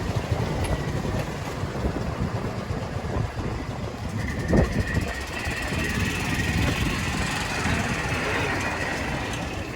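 A moving vehicle running, with road rumble and wind buffeting the microphone; a steady high whine joins about four seconds in.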